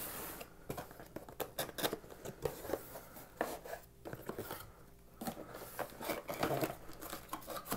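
Camera box packaging being handled and unpacked by hand: a quiet, irregular string of light taps, clicks and rustles of cardboard, paper and plastic.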